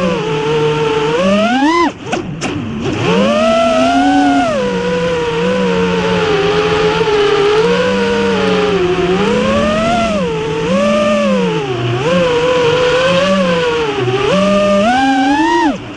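FPV quadcopter's brushless motors and propellers whining, the pitch rising and falling continuously with the throttle. The pitch climbs sharply and drops off about two seconds in as the throttle is chopped, and climbs sharply again just before the end before dropping away.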